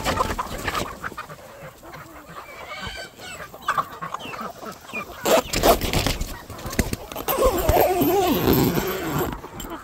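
A mixed flock of chickens and ducks calling: clucking, with louder honking calls in the second half. A tarp rustles loudly about halfway through.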